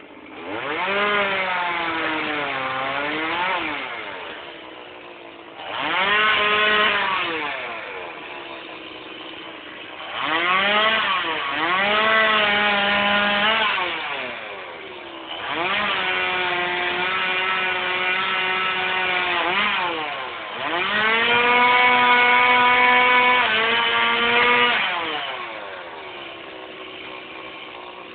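Two-stroke chainsaw cutting wood, its engine opened up to full throttle in about five bursts of a few seconds each and dropping back to idle between them. During the cuts the pitch sags and recovers. It idles for the last few seconds.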